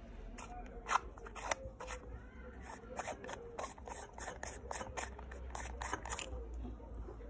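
Metal parts of an Angénieux Retrofocus Type R11 lens being turned and handled by hand: a quick, irregular series of small clicks and scrapes, two of them louder near the start.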